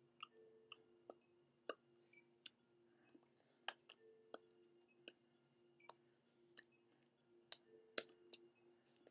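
Near silence with a faint steady hum, broken by a string of irregular sharp clicks and taps from hands striking each other and the chest while signing.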